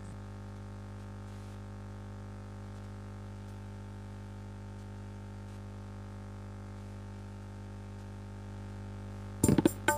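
Steady electrical hum, a low drone with a buzz of overtones, in the keyboard's recorded output while no style is playing. Near the end, a dangdut accompaniment on the Medeli arranger keyboard starts with sharp hand-drum beats.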